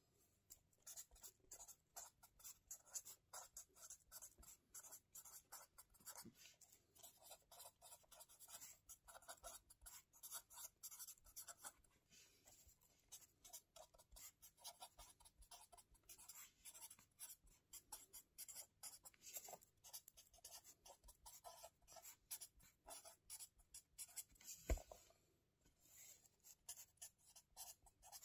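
Faint, close-up handwriting on lined notebook paper: a quick run of short scratching pen strokes, with one louder knock about 25 seconds in.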